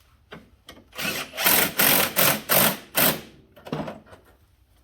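Power drill run in about five quick bursts, then one more shorter burst, driving in a fastener.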